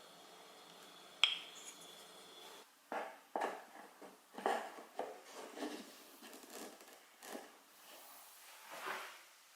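A sharp click about a second in, then a run of irregular light rubbing, scraping and knocking: small objects being handled on a bench in a small room.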